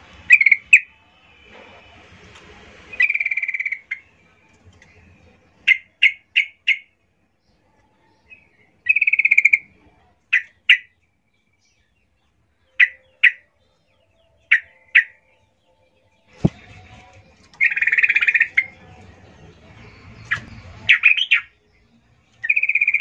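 Yellow-vented bulbul calling: short chirps in twos and threes and longer rattling notes at about the same pitch, repeated at irregular intervals. This is the female's call used to draw a male.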